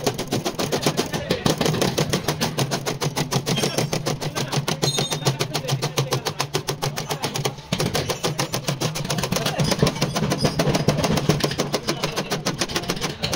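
Steel body hammer tapping rapidly on the folded sheet-metal edge of a car door, about five blows a second, with one short pause a little past halfway.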